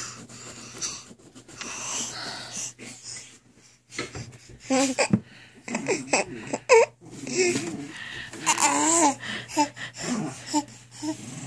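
A baby laughing and babbling: breathy, wheezy giggles for the first few seconds, then short pitched squeals and babbling sounds.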